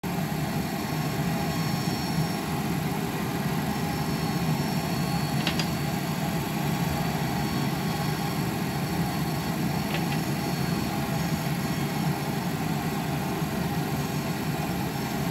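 Steady low rumble of a stovetop cooking session as tofu puffs and sea cucumber simmer in oil in a stainless-steel wok, with a couple of faint clicks about five and a half and ten seconds in.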